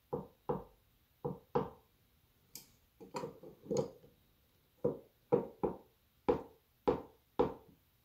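Tongue-and-groove pliers clicking against a metal faucet nut as it is turned tight: about a dozen short, sharp metallic clicks at an uneven pace, one or two a second. The nut is the cartridge hold-down nut, found loose and suspected as the cause of the dripping faucet.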